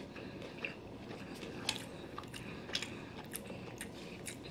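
A person chewing a bite of California sushi roll, with irregular wet mouth smacks and clicks.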